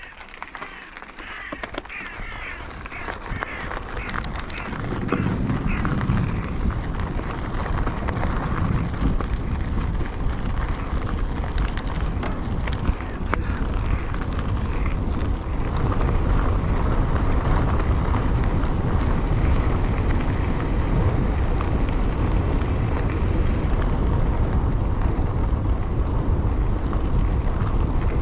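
Wind rush on an action camera and tyre-and-trail noise from a mountain bike ride, building over the first few seconds as the bike picks up speed and then holding steady. A run of short repeated calls sounds in the first few seconds.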